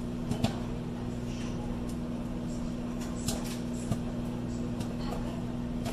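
Sunbeam microwave oven running with a steady hum while the bag of popcorn inside pops now and then, a few sharp scattered pops.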